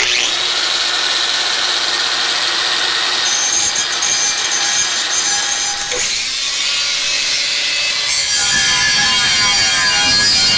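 Angle grinder grinding the edge of a 1/4-inch steel plate, running steadily with a brief dip about six seconds in.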